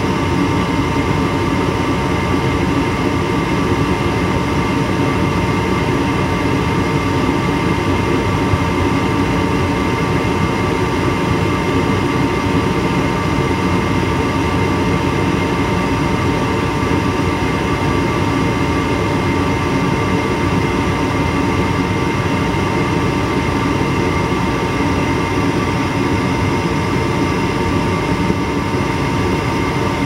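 Gas burners of an Armstrong 80,000 BTU furnace burning steadily: an even, constant rush with a few steady humming tones.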